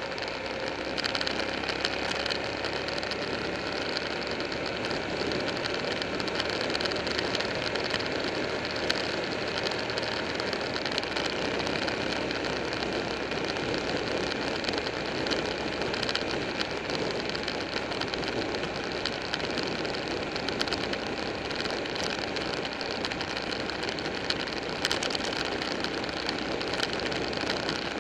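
Buell 1125R motorcycle's V-twin engine running steadily at road speed, mixed with steady wind rush over the microphone.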